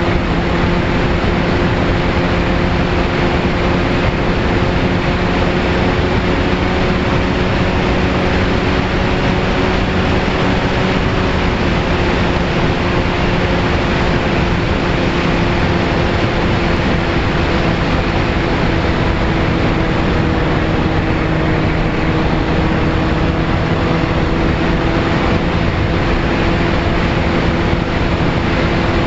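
VAS Chimera FPV plane in flight, heard from on board: its motor and propeller make a steady hum that drifts only slightly in pitch, under a heavy, constant rush of wind.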